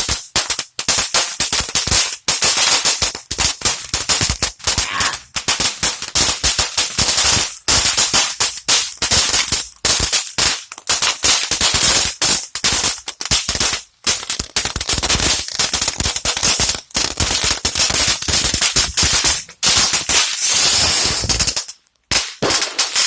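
Crackle barrel novelty firework going off: a long, dense run of rapid cracks and pops. Near the end a stickless rocket it has lit hisses for about two seconds and cuts off suddenly.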